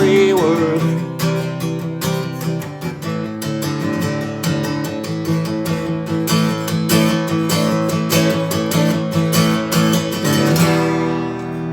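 Song outro on a strummed acoustic guitar: chords strummed in a steady rhythm, then a final chord left ringing near the end.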